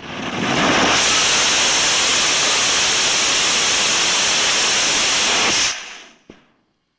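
Experimental high-power rocket motor firing at liftoff from its launch tower: a loud, steady rushing hiss that builds over about a second, holds for about five seconds, then falls away quickly. A single short click follows.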